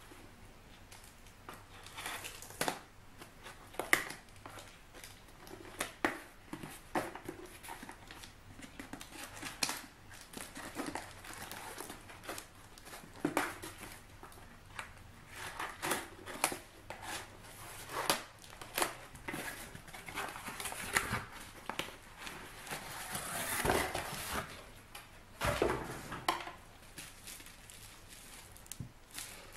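Scissors snipping through a cardboard book parcel, with cardboard handling and paper and bubble-wrap packaging crinkling as the book comes out. Many short separate clicks and rustles, with a longer crinkling spell near the end.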